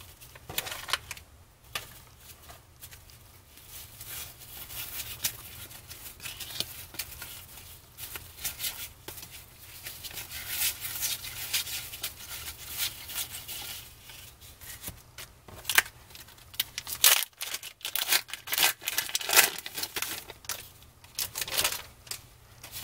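A stack of 1992 Donruss Triple Play baseball cards being flipped through by hand, card stock sliding and flicking against card in quick, irregular strokes that come thicker and louder in the second half.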